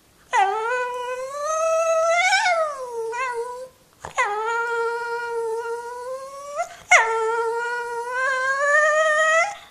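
Jack Russell terrier howling in three long, drawn-out, wavering calls, each rising in pitch before it breaks off.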